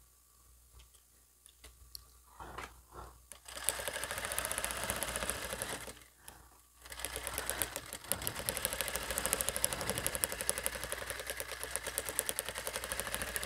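Brother industrial sewing machine stitching a seam in fabric: a few light handling clicks, then a short run of rapid, even stitching, a brief stop, and a longer steady run.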